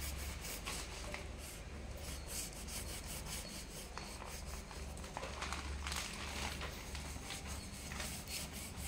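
Kitchen knife scraping and scoring through the spiky rind of a jackfruit, a run of faint rasping strokes as the blade is worked around the fruit.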